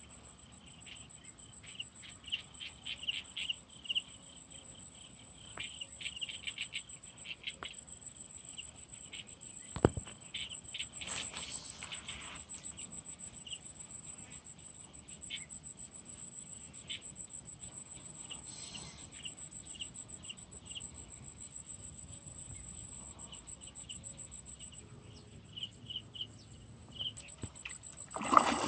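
Insects trilling steadily at a high pitch, with short repeated chirps mixed in and a single sharp knock about ten seconds in.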